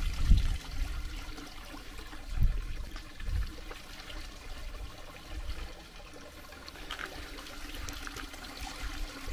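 Drinking water running steadily from a village water source, trickling and splashing. A few low rumbles break in near the start and at about two and a half and three and a half seconds.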